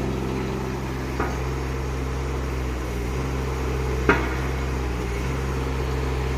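Mini excavator engine running steadily, with two sharp metallic knocks: a light one about a second in and a louder one about four seconds in.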